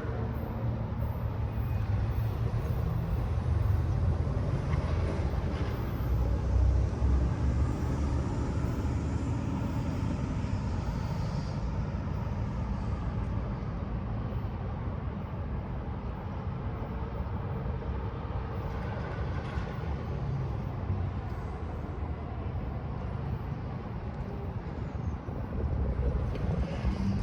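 A train passing the station, a steady low rumble with a wash of rolling noise over it.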